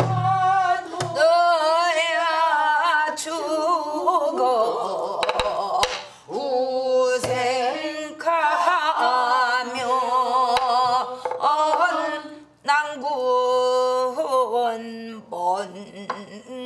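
A woman singing a Korean Gyeongsang-do folk song in long, drawn-out phrases with a wide, wavering vibrato, keeping time with a few strokes on a buk barrel drum.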